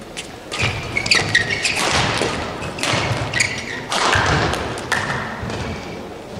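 Badminton doubles rally: rackets hitting the shuttlecock in quick exchanges, with players' feet thudding and squeaking on the court.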